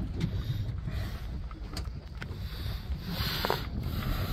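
Fishing boat at sea: a steady low rumble of the boat's motor with wind and water noise, and a brief rush of noise about three seconds in.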